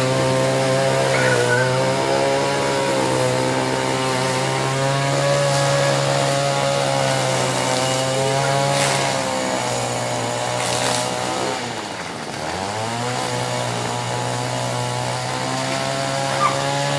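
A small engine runs steadily at a constant pitch. About twelve seconds in, its pitch sags briefly, then climbs back to its earlier speed.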